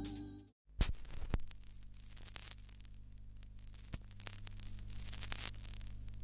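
Background music fades out, cut by a moment of dead silence. Then a steady low electrical hum with scattered crackles and clicks takes over, the kind of static laid under an old silent-film title card.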